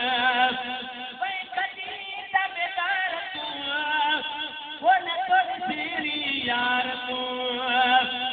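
A man singing a devotional song into a microphone, in long held, wavering notes.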